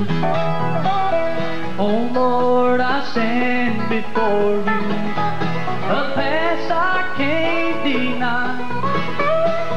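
Live bluegrass band playing the instrumental opening of a gospel song on banjo, mandolin, acoustic guitar and dobro, with the melody moving and gliding in pitch over steady strummed chords.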